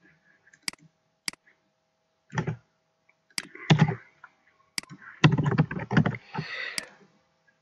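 Computer keyboard and mouse clicks at an irregular pace, some sharp and some duller thuds, over a faint steady hum.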